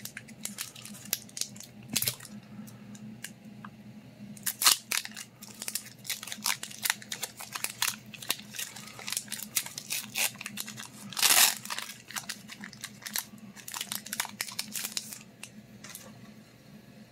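Foil Pokémon booster pack wrapper crinkling and being torn open, a long string of sharp crackles with a longer rip about eleven seconds in.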